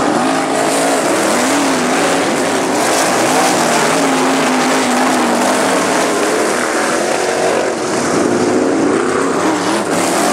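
Several winged dirt-track sprint cars' V8 engines at race speed, the engine notes rising and falling as the cars go around the oval.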